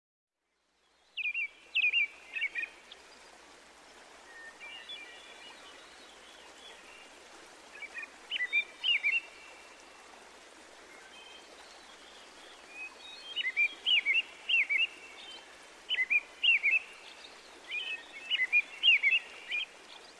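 Songbirds chirping, starting about a second in, in repeated bursts of quick high notes over a faint steady outdoor hiss.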